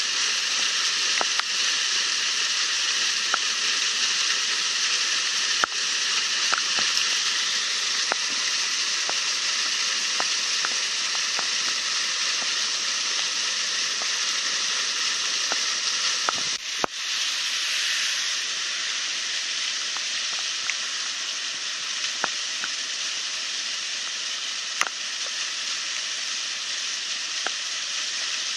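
Stormwater outfall pipe gushing into a creek swollen by heavy rain: a steady rushing of water with scattered faint ticks. A brief knock comes a little past halfway, after which the rush is slightly quieter.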